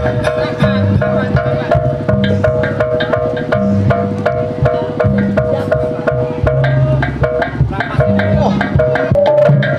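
Jaranan buto accompaniment music: a fast, even rhythm of hand drums and percussion strokes over a steady sustained two-note melody line.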